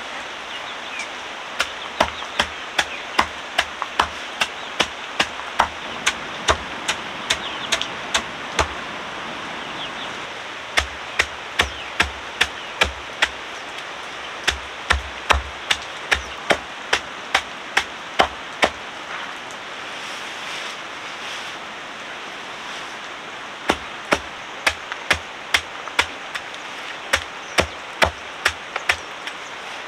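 Chopping with a blade, sharp strokes in a steady rhythm of about one to two a second, pausing for about four seconds roughly two-thirds of the way through. A steady hiss runs underneath.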